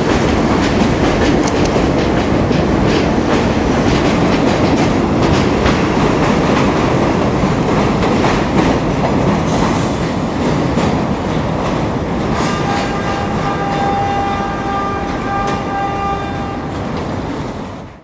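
New York City subway train running on the Flushing Line, wheels clacking over the rail joints with a steady rumble. For several seconds in the second half, a steady high-pitched tone rides over the noise.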